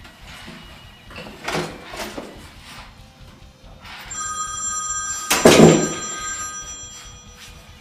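A phone ringtone starts about four seconds in and keeps ringing, a steady chord of electronic tones. Shortly after it starts there is one loud, brief burst of noise, and a couple of softer thuds come before the ringing.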